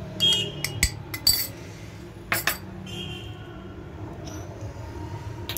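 Metal utensils clinking against a glass mixing bowl as spice powders are added to gram-flour batter: several sharp clinks in the first three seconds, a couple ringing briefly, the loudest about two and a half seconds in, over a steady low hum.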